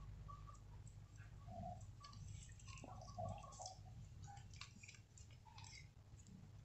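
Faint soft squishes and scattered light ticks as chilled whipping cream is squeezed out of its carton into a plastic mixer bowl, over a low room hum.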